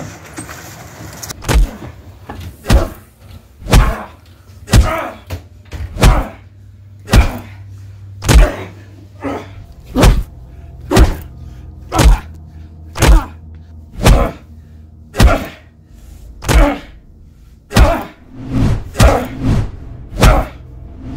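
Background music: a slow, heavy drum beat of about one hit a second over a low sustained bass tone, with the hits coming closer together near the end.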